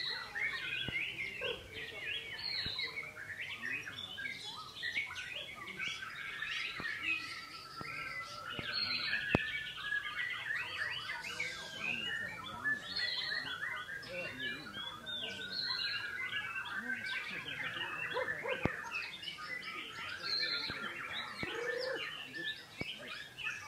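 White-rumped shamas singing without a break, a dense stream of overlapping chirps, trills and whistles, with a few sharp clicks.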